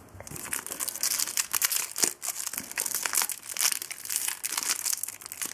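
Foil wrapper of a Match Attax trading-card pack crinkling and crackling as it is handled and torn open by hand.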